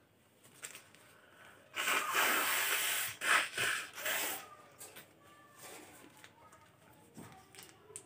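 A woman blowing hard through her nose: one long hissing blast about two seconds in, then a few short blasts.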